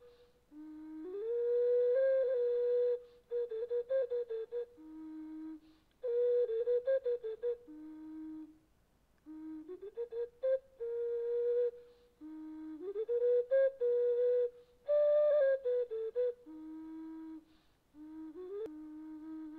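Background music: a slow, flute-like melody, a single line of notes that glide upward, played in phrases a few seconds long with short pauses between them.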